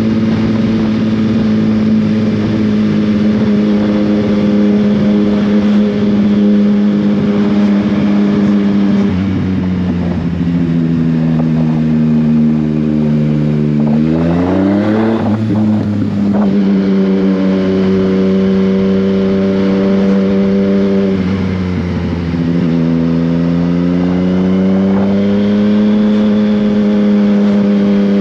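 Yamaha Tracer 900 GT's three-cylinder engine through an Akrapovič exhaust, heard while riding. It holds steady revs, then eases off for several seconds, and the revs climb sharply about halfway through. After that it runs steady again, dips briefly and picks up near the end.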